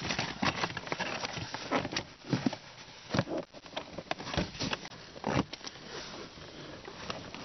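Rustling and scuffing of a car's floor carpet being pulled and folded back by hand, with scattered light knocks and clicks from the carpet and trim.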